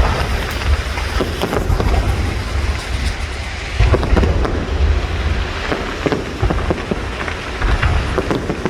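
Fireworks display: a continuous low rumble of shell bursts with many quick crackles and pops layered over it.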